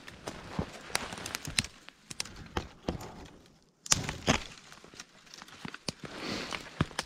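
Footsteps crunching through fresh wet snow, with twigs crackling and brush rustling on clothing. The steps stop briefly a little past the middle, then start again with a sharp crack.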